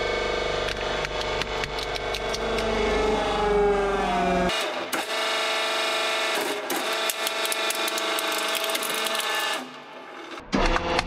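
Hydraulic press running with a steady mechanical whine while a toy car cracks and crunches under the ram. About four and a half seconds in, the sound jumps to a second crush, where a toy pickup truck snaps and crackles as it is flattened. It goes briefly quieter near the end.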